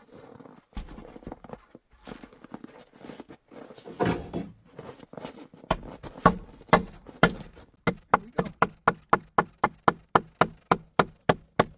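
Handling and scraping of a rough wooden pole, then sharp wooden knocks: a few separate ones, then a steady run of about two to three strikes a second from about eight seconds in, as the pole is worked on or knocked into place.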